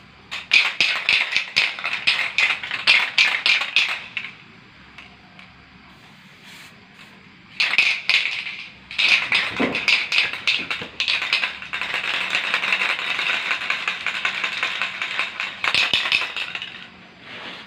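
Aerosol spray-paint can hissing in quick, rapid-fire bursts for a few seconds, then again after a pause of about three seconds, settling into a longer, more even spray near the end.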